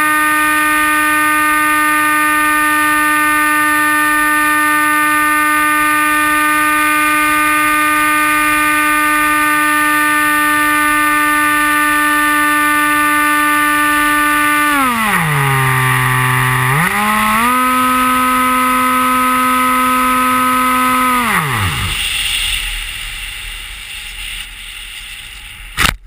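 Comet RC flying wing's motor and propeller, heard from the onboard camera: a steady high whine at full throttle. About fifteen seconds in the pitch drops steeply, rises partway again, then winds down to nothing a few seconds later. A fading rush of air follows, and a brief loud knock comes at the very end.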